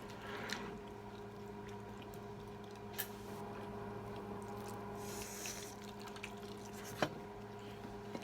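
Quiet eating sounds: soft chewing with a few short clicks of utensils against a plate, over a steady low electrical hum.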